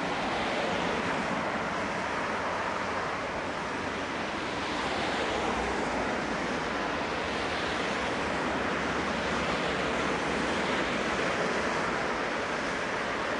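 Steam locomotive C12 66, a C12-class tank engine, working steam as it pulls slowly away with its train, heavy exhaust from the chimney heard as a steady rushing noise with slow swells.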